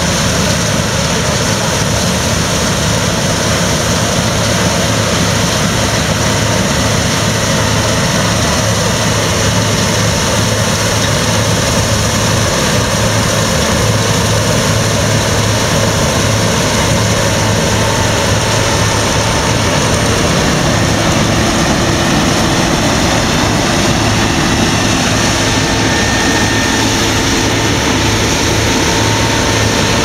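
Claas Lexion combine harvesters running under load while cutting and threshing rapeseed. Their engines and threshing machinery make a steady, loud drone with a low hum underneath.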